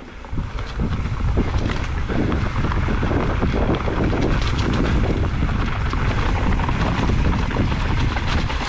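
Mountain bike rolling fast down a rough, rocky trail: a steady rumble of tyres over rock with dense rattling and clattering of the bike, and wind buffeting the microphone.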